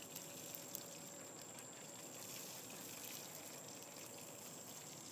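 Faint trickle of olive oil being poured into a small camp pan set over a burning Esbit-type fuel-pellet stove.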